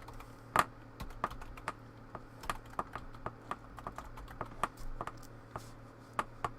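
Typing on a computer keyboard: irregular keystrokes, a few a second, with a faint steady low hum behind them.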